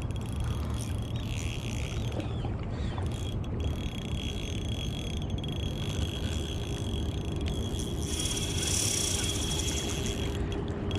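Shimano Stradic Ci4+ 1000 spinning reel being cranked to retrieve braided line against a hooked fish, a thin steady gear whine that pauses briefly about three seconds in, over a low steady rumble.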